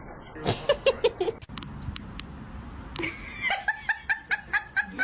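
A person laughing in short rapid bursts: a brief lower laugh about half a second in, then a longer, higher-pitched run of quick laughs from about three and a half seconds.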